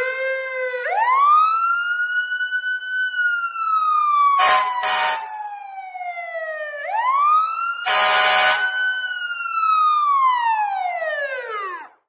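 Emergency vehicle siren wailing: the pitch climbs, holds and slowly falls, twice over. Short horn blasts cut in twice near the middle and once more about two-thirds of the way through.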